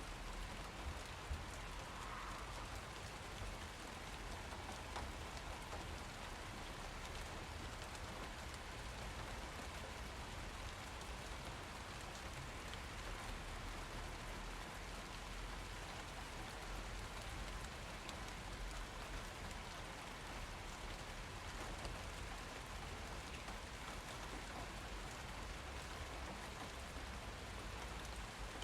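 Steady rain falling and pattering on surfaces, with a few faint drip knocks in the first couple of seconds.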